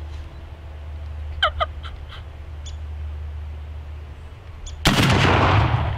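A shotgun shot about five seconds in: a sharp, loud blast that rolls off in a long echo. About a second and a half in, two quick rising call notes come before it.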